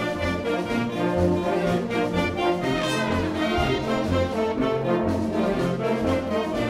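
Junior wind band playing, brass instruments carrying the tune over a low bass line that steps from note to note about twice a second.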